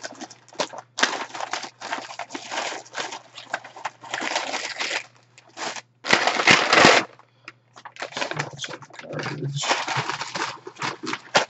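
Plastic shipping bag and garment wrapping crinkling and rustling in bursts as the package is opened by hand and the shirt pulled out; loudest about six seconds in.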